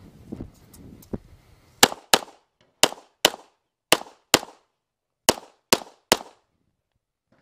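Semi-automatic pistol fired nine times, in quick pairs about a third of a second apart with a third shot closing the last pair. The shots are preceded by about a second of low rustling as the shooter moves into position.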